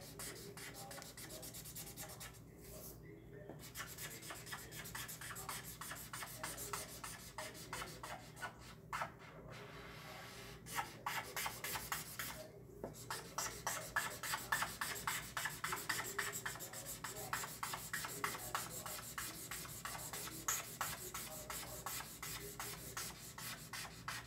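Felt-tip marker rubbing on paper in quick back-and-forth strokes as an area is coloured in, with a few short pauses.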